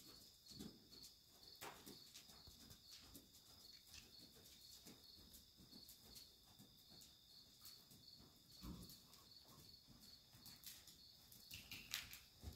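Near silence: a faint, high, evenly pulsing insect-like chirp, with soft muffled thuds of a horse's hooves walking on arena sand and a brief louder rustle near the end.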